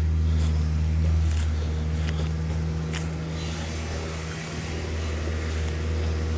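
Excavator's diesel engine running steadily, a low continuous hum.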